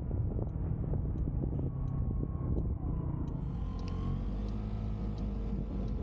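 Car driving on the road: a steady low rumble of road and engine noise, with faint tones that bend slowly in pitch from about halfway through.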